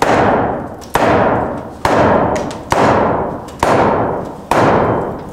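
Sledgehammer blows on wooden floor framing: six hard strikes in an even rhythm a little under a second apart, each ringing out and fading before the next.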